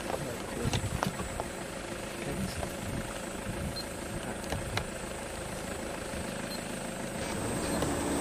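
A vehicle engine idling steadily, with a few faint clicks over it.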